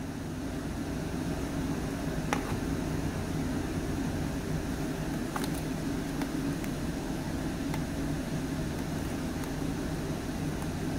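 Steady mechanical whirring hum with a hiss, unchanging throughout, with a few faint clicks.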